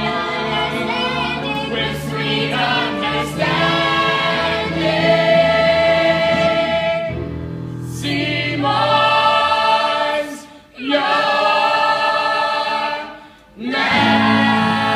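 Live musical-theatre number: lead singers and ensemble chorus singing with musical accompaniment, holding long notes, with two short breaks between phrases late on.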